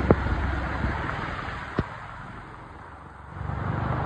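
Heavy rain pouring onto a flooded road, with motor traffic running through the water. The noise eases about two seconds in and swells again near the end, with a couple of sharp ticks.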